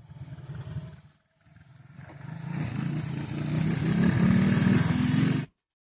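Motorcycle engine running under throttle, with a short drop about a second in. From about two seconds in it revs up, growing louder and slightly higher in pitch, then cuts off abruptly.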